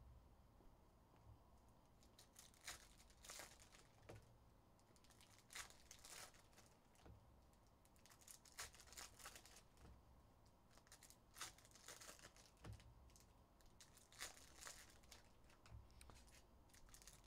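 Faint, irregular rustles and swishes of trading cards and pack wrappers being handled by hand: cards sliding off stacks and being sorted.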